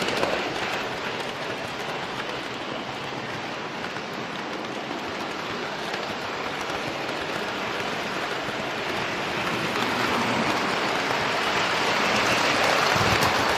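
Passing train's steady rushing rolling noise on the rails, growing louder toward the end.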